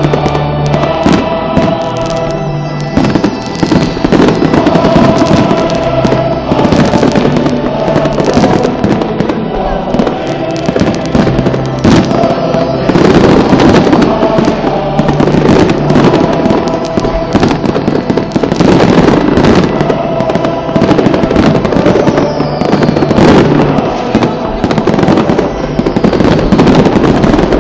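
Fireworks going off in a dense, continuous barrage of overlapping bangs and crackles, with music playing underneath.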